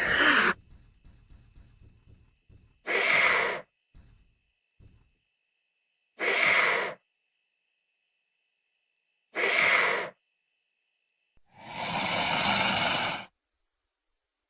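Juvenile Tyrannosaurus rex creature sound effects: a short call falling in pitch, then three short breath-like exhales about three seconds apart, and a longer, louder breath near the end that cuts off into silence.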